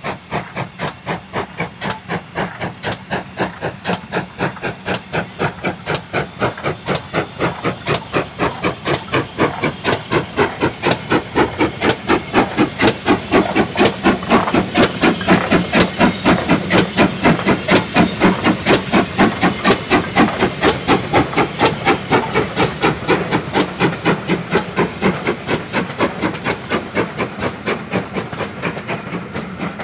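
GWR Modified Hall 4-6-0 No. 6989, a two-cylinder steam locomotive, working hard past with a steady rhythm of sharp exhaust beats, about three to four a second. The beats are loudest midway as the engine passes, then ease off as the train draws away.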